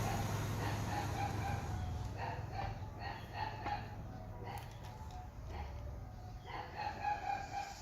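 Chickens calling: a run of short, repeated pitched calls, over a low hum that fades during the first couple of seconds.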